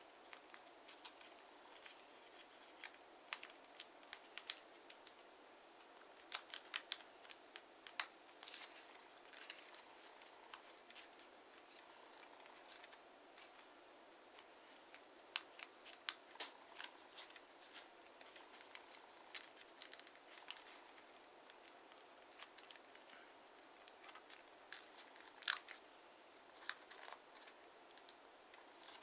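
A sheet of TANT origami paper crinkling and clicking faintly as fingers fold and crease it: scattered short, sharp crackles, the loudest one about three-quarters of the way through.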